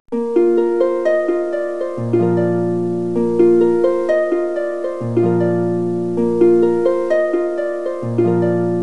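Background music of plucked-string notes in a repeating pattern, with a low bass note joining about every three seconds.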